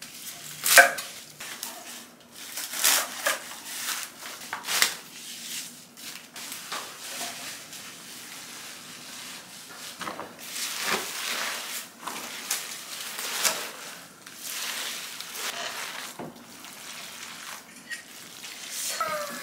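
A kitchen knife chopping leaf mustard greens on a wooden cutting board, with several sharp chops in the first few seconds. Later there is a wet rustling as gloved hands toss the vegetables into red kimchi seasoning.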